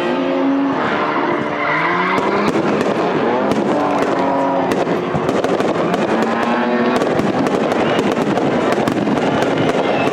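Fireworks display going off: rapid crackling pops, thicker in the second half, over several sustained tones that shift in pitch.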